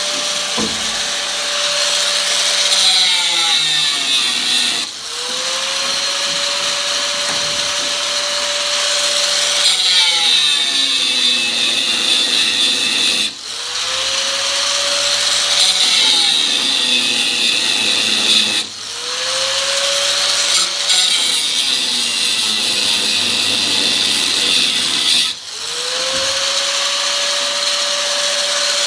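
Power cutting tool cutting into the car's quarter-panel sheet metal during rust repair, its motor whining with a loud hiss of cutting. It stops briefly four times and spins back up each time.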